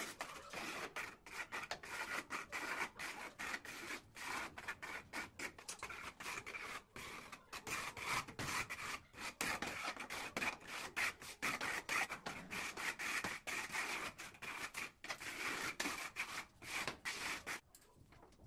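Notched steel trowel spreading and combing cement tile adhesive across a countertop, a quick run of short scraping strokes that stops near the end.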